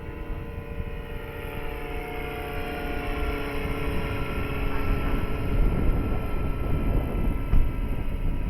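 Large electric RC scale helicopter (Eurocopter BK117 model) in flight: a steady whine from the electric motor and rotors that shifts slightly in pitch, with low wind rumble on the microphone growing stronger about halfway through.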